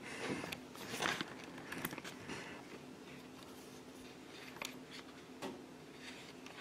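Quiet room with a faint steady hum, a soft rustle about a second in and a few light clicks of handling noise.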